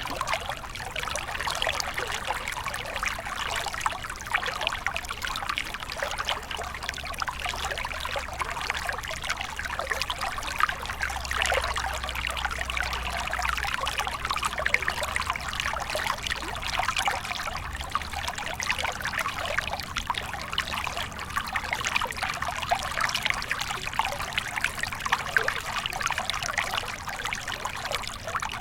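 Small stream flowing over rocks: steady trickling and splashing water with many fine bubbling details.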